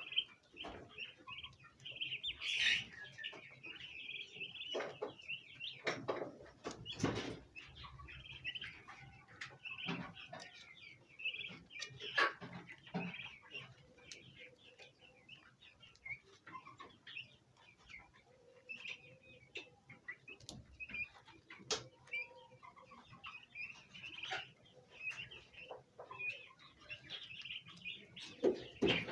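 A group of bronze turkey poults chirping continuously, many short overlapping high peeps, with a few sharp knocks among them.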